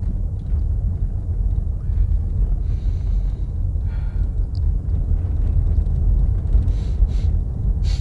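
Steady low road and engine rumble inside the cabin of a moving Citroën C5 Tourer, with a man sniffing the air a few times as he checks for a musty smell from the vents.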